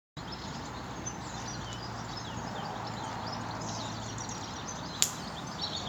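Small birds chirping and twittering over a steady background hiss, with one sharp click about five seconds in.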